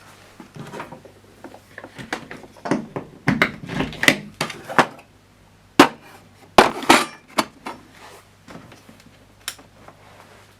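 Irregular clicks, knocks and clatter of hard plastic and metal parts and tools being handled while working on a Jura Z5 espresso machine, with a few sharp knocks about six and seven seconds in.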